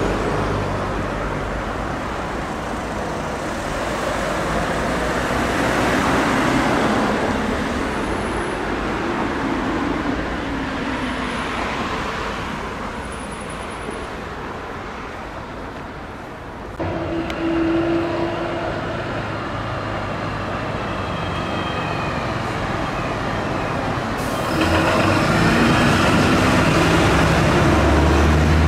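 Emergency vehicles driving on a city street: engine and tyre noise. Near the end a heavy fire engine's diesel engine runs close by.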